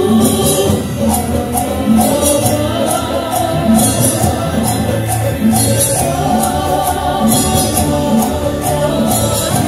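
Festival dance music with singing voices over a steady beat of drums and rattling percussion.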